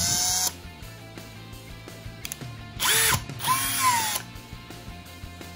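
iBELL BM18-60 20V brushless cordless impact drill running in reverse in short trigger pulls. A run ends about half a second in, then two quick bursts come around three seconds in, the motor whine rising and then falling as it spins down.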